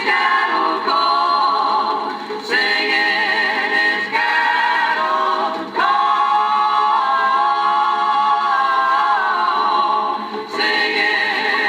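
Music: a vocal chorus singing slow, long-held phrases with vibrato, backed by orchestra.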